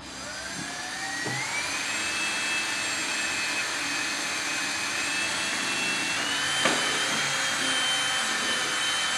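Cordless drill with a 1/8-inch bit boring a pilot hole through an aluminum diamond plate rocker panel for a self-tapping screw. The motor whine rises in pitch over the first two seconds as it spins up, then holds steady, edging higher about six seconds in with a brief click.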